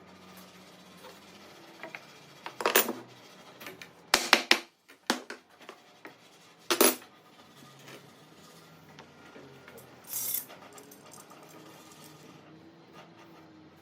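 A handful of short, sharp clinks and knocks of small hard objects being handled, including a quick cluster of three near the middle, with quiet shuffling in between.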